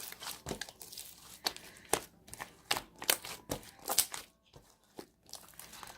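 Slime being squeezed and stretched by hand, giving irregular sharp clicks and pops, several a second.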